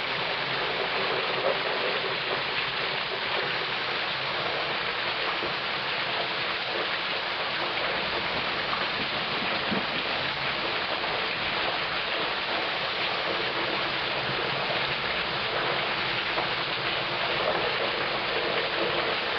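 Heavy rain pouring steadily: an even, unbroken hiss of rain falling on the street and surrounding surfaces.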